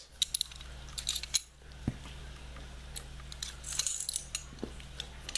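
Light metallic clicks and small knocks of a Star Model B 9mm pistol's slide, barrel and recoil spring being handled during reassembly. The clicks come scattered: a cluster near the start, single ones around one and two seconds in, and a few more near four seconds.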